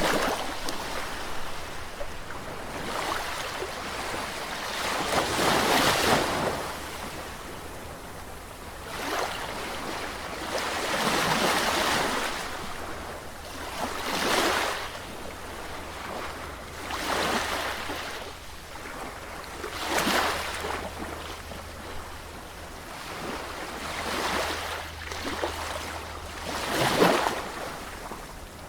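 Sea waves breaking and washing on the shore, one surge after another every few seconds, the loudest near the end, over a steady low rumble.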